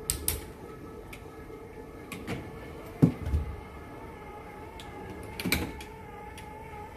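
Motorized curtain track running with a steady hum as the curtains draw open, with a few clicks and knocks along the way, the loudest about three seconds in.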